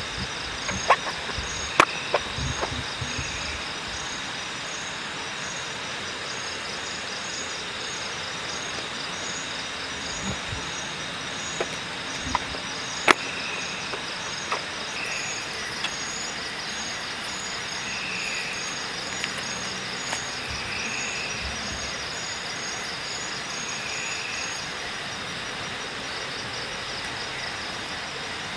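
Night rainforest ambience: steady trilling of insects with a regularly pulsing high chirp, over the steady rush of a river. A few sharp clicks and light knocks come in the first few seconds and again around ten to thirteen seconds in, from meat being handled on a plastic cutting board.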